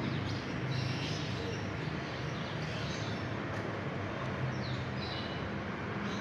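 Steady outdoor background noise with short, high bird chirps now and then.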